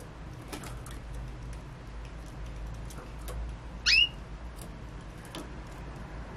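A puppy gives one short, high-pitched yelp that sweeps up in pitch, about four seconds in, against faint scattered clicks.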